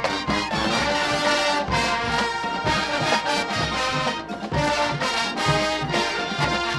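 Marching band playing a brass-led tune, trombones and other horns holding chords over drums, with no break in the music.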